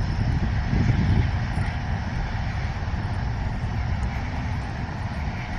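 Union Pacific loaded coal train rolling past: a steady low rumble of wheels and cars on the track, swelling slightly about a second in.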